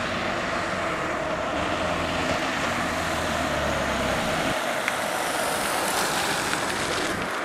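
Race-convoy motor vehicles, cars and motorcycles, approaching along the road, their engines and tyres making steady traffic noise.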